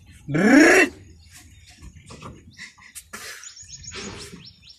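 A voice gives one short rising-and-falling whoop about half a second in, then quiet scattered clicks and knocks with a run of faint high chirps in the middle.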